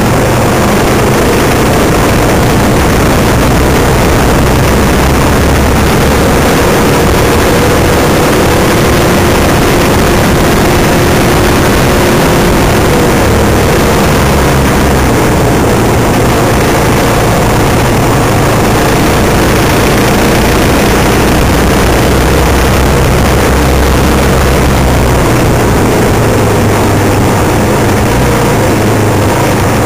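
Off-road vehicle engine running steadily at cruising speed along a gravel trail, heard close up from the vehicle itself, with road and wind noise mixed in.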